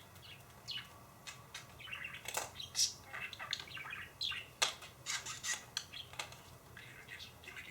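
Pet budgie chirping and chattering in short, irregular high calls, mixed with small sharp clicks and taps.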